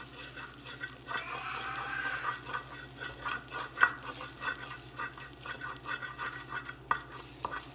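Wooden spatula scraping and stirring across a frying pan in quick repeated strokes, spreading melting butter around the pan.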